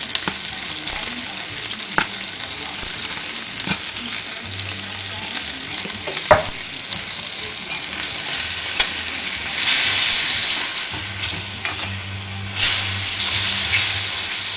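Chicken and onions frying in a pan in a honey and mustard sauce: a steady sizzle with a few sharp utensil clicks. The sizzle swells louder twice in the second half.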